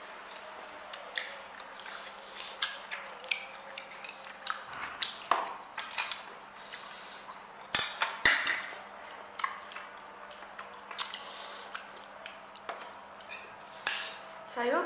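Cutlery clinking and scraping against a plate while eating: irregular sharp clicks and knocks, the loudest a little past halfway.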